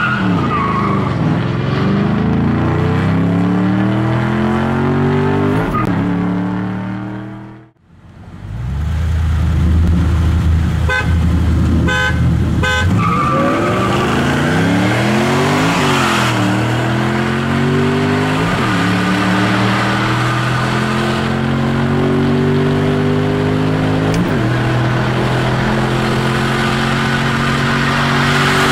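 Car engines at full throttle in a roll race, heard from inside a car: engine pitch climbs and drops back at each upshift, several times over, with a high whine near the start and again around 13 s. The sound drops out almost to silence about 8 s in, then another hard run through the gears follows.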